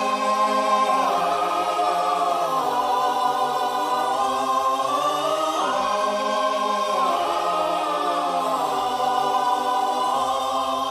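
Choral music: a choir holding long sustained chords that shift slowly a few times, with no battle sounds beneath it.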